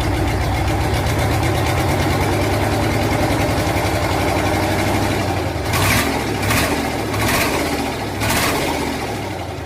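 RF8 engine running steadily with an even low chugging, then four short louder bursts about a second apart, before the sound drops off near the end.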